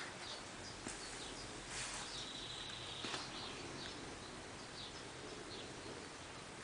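Steady outdoor background noise with short, faint bird chirps scattered through it.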